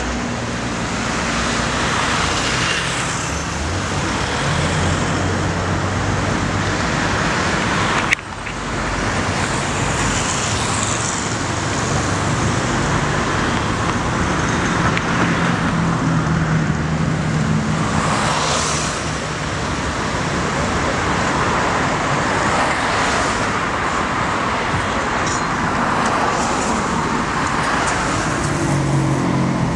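Steady city road traffic: cars passing on a busy avenue, engine hum and tyre noise swelling and fading as vehicles go by. A sharp click with a brief drop in level about eight seconds in.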